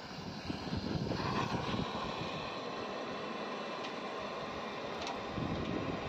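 Brazing torch flame burning with a steady hiss while it heats the copper return-bend joints of an air-conditioner condenser coil.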